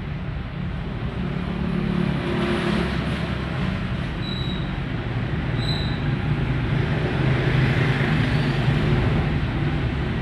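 Steady low rumble of vehicle engines and traffic, swelling a little in the second half, with two brief high-pitched squeaks about four and six seconds in.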